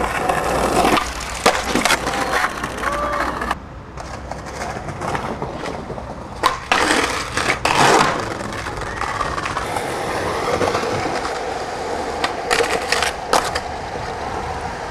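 Skateboard wheels rolling over stone paving and concrete, with the wooden deck cracking and clacking sharply on tricks and slapping down on landings a number of times.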